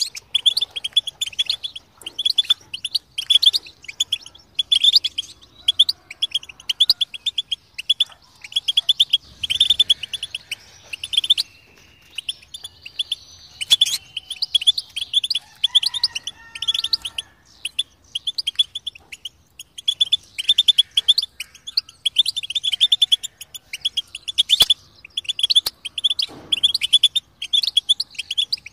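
European goldfinch singing: fast twittering phrases of rapid, high notes, one after another with brief pauses between them.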